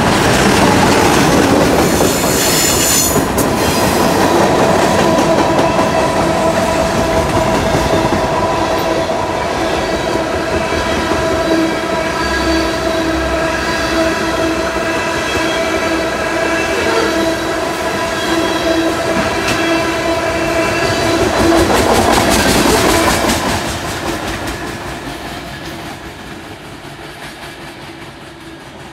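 Diesel-hauled freight train passing close by: the locomotives go by first, then a long string of freight cars clatter over the rails with a steady ringing squeal from the wheels. The sound fades away as the end of the train passes, about 23 seconds in.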